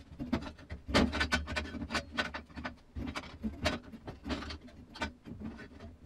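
Irregular clinks and scrapes of a 2 mm steel blank being levered and bent by hand in a slot cut in an old piece of angle iron.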